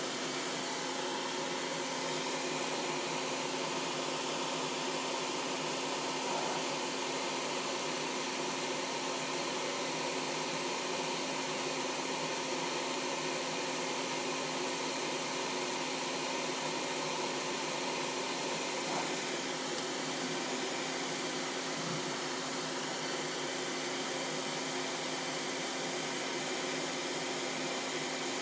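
Benchtop solder fume extractor fan running steadily: an even rush of air with a faint steady hum.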